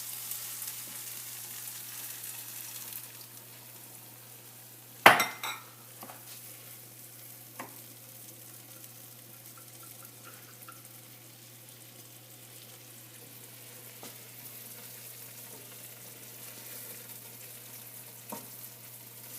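Onion, tomato, cream and cheese sizzling in a frying pan on the stove while being stirred, a steady frying hiss. A utensil clacks sharply against the pan about five seconds in, with a few lighter taps later.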